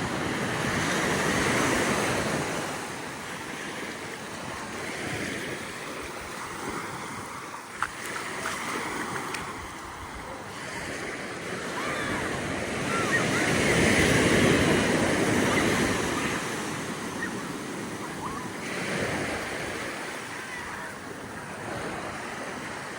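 Ocean surf breaking and washing up a sandy beach, swelling loudest about a second in and again around fourteen seconds in.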